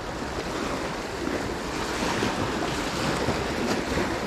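Sea waves washing in a steady rush, with wind noise on the microphone.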